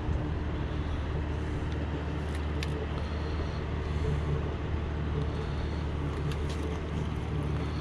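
Boat motor running steadily, a constant low hum.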